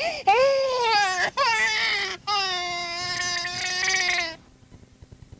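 Recorded infant crying from a sound-effects cassette: several short wailing cries, then one long cry that sinks slightly in pitch and stops suddenly about four seconds in.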